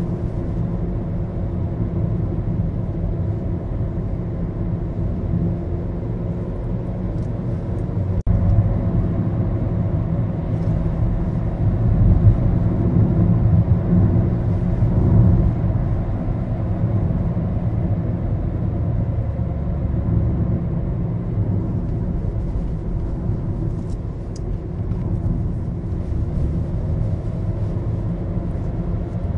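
Steady engine and road rumble inside the cabin of a moving Maruti Suzuki Baleno, slightly louder about halfway through.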